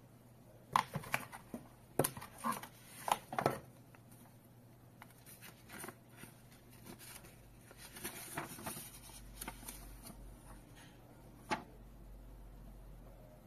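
Handling noises of unboxing: a quick series of sharp clicks and taps as a cable, paper roll and cardboard box are handled, then the softer rustle of a folded paper instruction leaflet being opened out, with one sharp tap near the end.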